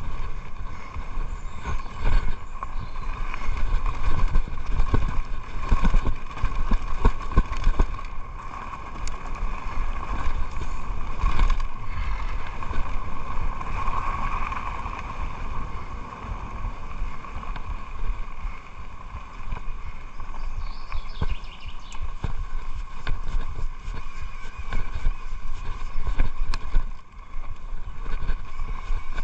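Mountain bike running fast down a dirt trail: tyres rumbling over the ground, with repeated knocks and rattles from the bike over bumps and a steady high hum on top.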